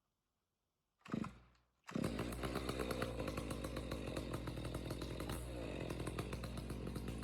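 Gas chainsaw starting: a brief sputter about a second in, then it catches about two seconds in and runs steadily.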